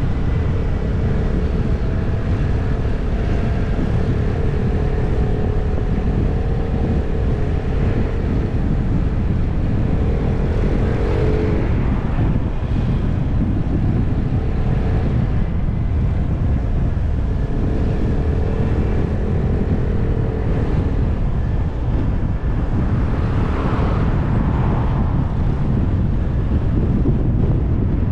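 Motor scooter engine running while riding, its pitch rising and falling with speed, under heavy wind rumble on the microphone.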